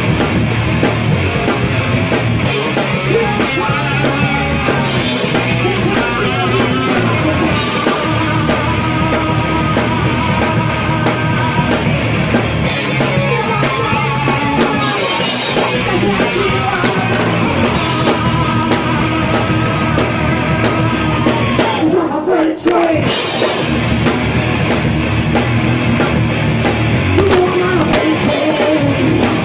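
Live hard rock band playing: distorted electric guitars, bass guitar and drum kit, with a woman singing lead. About three-quarters of the way through, the band cuts out for a moment and then comes back in.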